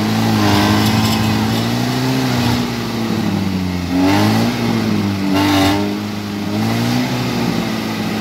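Lada Niva's four-cylinder petrol engine revved hard again and again, its pitch rising and falling about five times, as it strains to drive the car off a rock. The car is beached on the rock in mud and makes no headway.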